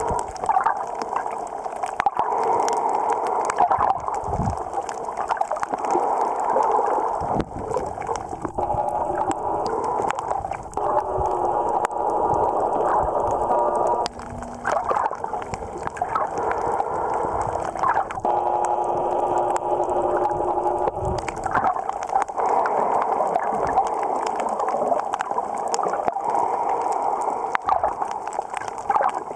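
Muffled underwater noise, sloshing and gurgling water as picked up by a camera below the surface. Twice a steady hum comes in for a few seconds, around a third of the way in and again a little past the middle.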